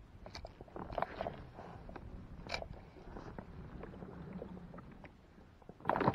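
Scattered light clicks and knocks from a spinning rod and reel being handled in a kayak, with a sharper click about two and a half seconds in. A louder jumble of sound begins near the end.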